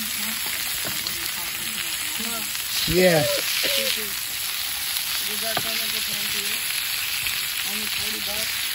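Hamburger patties sizzling in grease on a griddle, a steady frying hiss, as a wooden spatula works under them. Faint voices run underneath, with one brief louder voice about three seconds in.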